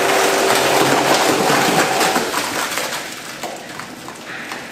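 Thick wet mass of red-pepper kimchi seasoning with shredded radish sliding off a tilted stainless-steel mixer and splattering into a steel tub, a dense wet crackle with a machine hum for the first two seconds. The pouring dies away over the last couple of seconds.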